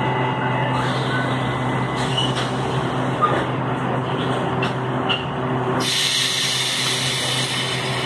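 Série 4400 (FNV/Cobrasma) electric multiple unit's "ronco": a steady growling hum made of several low tones, heard from inside the car. A hiss comes in about six seconds in.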